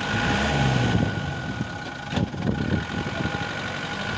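Land Rover Defender's engine running as it crawls slowly over soft sand mounds, with a single sharp knock about two seconds in.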